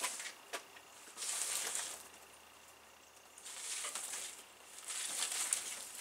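Leafy cut branches rustling and scraping in three bursts of about a second each as they are handled, with a few light cracks of twigs.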